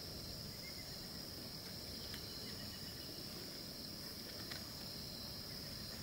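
Insects droning in one steady high-pitched band, over a faint low background rumble.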